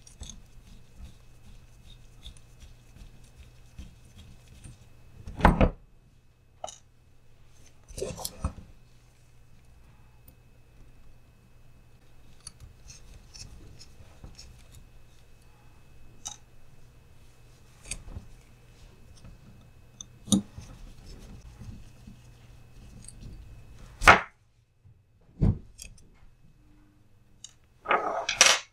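Hex driver and the small plastic and metal parts of a TRX-4M crawler's front axle being handled as the differential screws are taken out: scattered light clicks and rattles, with a few sharp louder knocks and clatters, the loudest about five seconds in and again about 24 seconds in.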